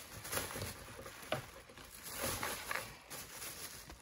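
Trading cards being handled and sorted by hand: soft, irregular rustles and light clicks of card stock sliding against card stock.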